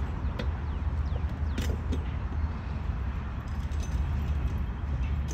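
Freight train cars rolling past: a steady low rumble with a few metallic clanks in the first two seconds.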